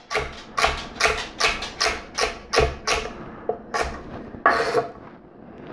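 Chef's knife dicing celery on a wooden cutting board: a run of crisp chops, about two or three a second, that stops about five seconds in.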